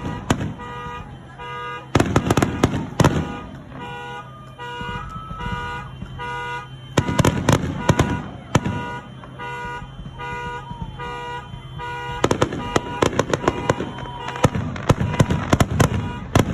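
Consumer fireworks going off in clusters of sharp bangs and crackles: a burst right at the start, another about two seconds in, one about seven seconds in, and a long run from about twelve seconds to the end. Underneath, a pitched tone pulses on and off in a fast, even rhythm, with an occasional gliding whistle.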